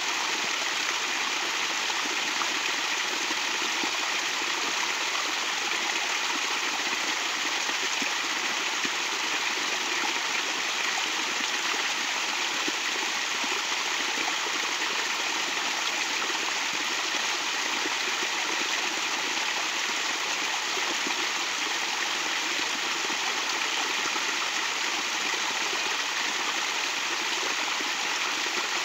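Small stream running over rocks and falling into a shallow pool, a steady unbroken rush of water.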